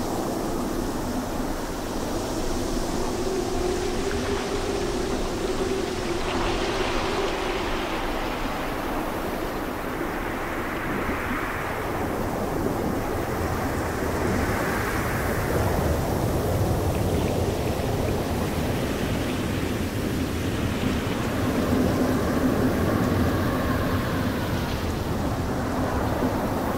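Typhoon wind rushing steadily, swelling and easing in gusts.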